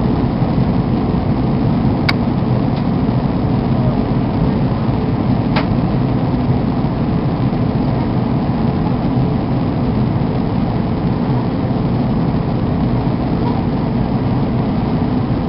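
Airbus A320 cabin noise on approach: the steady rumble of the jet engines and airflow heard from a window seat, with a faint steady hum. Two brief clicks come about two and five and a half seconds in.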